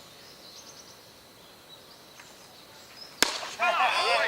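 Quiet open-air background, then a single sharp crack about three seconds in, followed at once by several people shouting.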